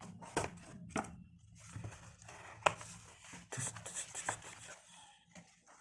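Hands taking a trimmer out of its packaging: scattered faint rustles and scrapes with a few sharp clicks, the loudest click about two and a half seconds in.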